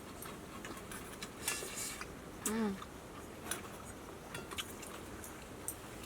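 Light clicks and taps of metal utensils against stainless steel cookware during a meal, scattered irregularly. Tinny 'ting'-type contacts of the kind the diners call the stainless noise.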